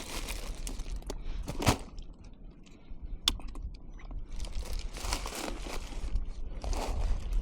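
Irregular rustling and crinkling handling noises with a few sharp clicks, over a low rumble.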